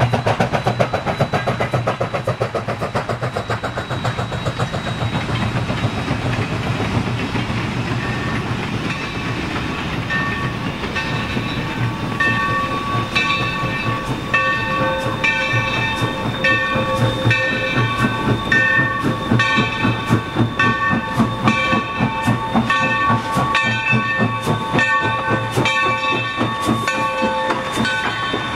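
A 2-8-2 Mikado steam locomotive chuffing with quick, even exhaust beats as it hauls a freight train, over the rumble of the train rolling. The beats fade, and from about twelve seconds in the locomotive's bell rings steadily, a stroke roughly every three-quarters of a second, as the engine and cars roll by.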